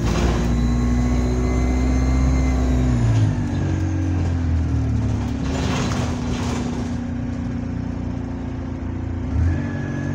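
Single-deck bus engine pulling under load from inside the saloon, its note dropping about three seconds in as the gearbox changes up, then building again near the end. A faint high whistle rides on it under power, which the owner puts down to a turbo leak, and two brief hisses come through.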